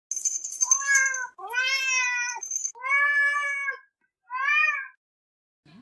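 A domestic cat meowing four times, each meow a drawn-out call with a short pause between. The last meow is the shortest. A high thin tone with faint clicks sits over the first second.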